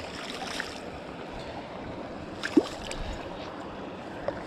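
Steady rush of running stream water, with one brief sharp sound about halfway through.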